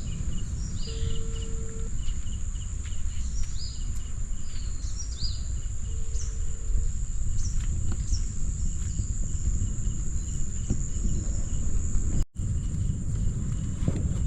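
Steady high-pitched insect drone with scattered short bird chirps, over a continuous low rumble of wind or distant surf. The sound cuts out briefly about twelve seconds in.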